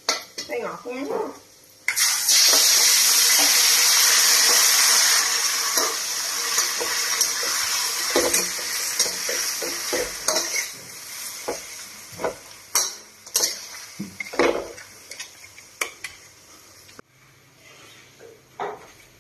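Garlic frying in oil in a large aluminium wok, a metal spatula scraping it; about two seconds in, diced pork goes into the hot oil and it breaks into a loud sizzle that slowly dies down while the spatula scrapes and clacks against the wok. Near the end the sizzle gives way to much quieter room sound.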